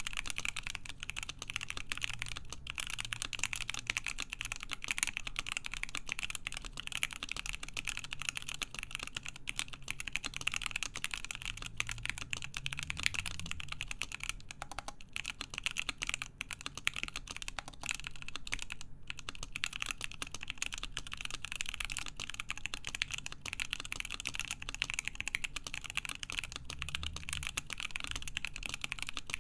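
Continuous fast typing on a Cannon Keys Savage65 mechanical keyboard with stock, unlubed JWK Lilac linear switches on a full FR-4 plate and Hammerworks CRP keycaps: a dense, steady stream of key clacks.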